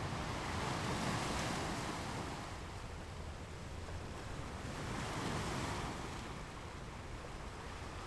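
Sea waves washing onto a beach, the surf swelling twice about four seconds apart over a steady low rush.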